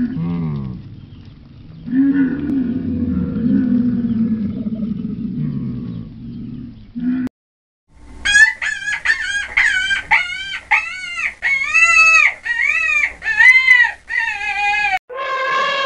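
A dromedary camel grumbles low and long, its call wavering in pitch. After a short break comes a run of about a dozen short, high animal calls, each rising and falling. A new falling call starts near the end.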